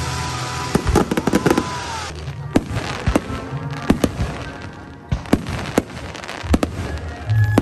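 Aerial fireworks shells bursting: a quick run of bangs about a second in, then single bangs every half second to second.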